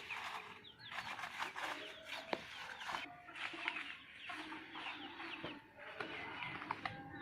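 Hens clucking, with a few drawn-out calls, among the quick, high chirping of small birds feeding nearby.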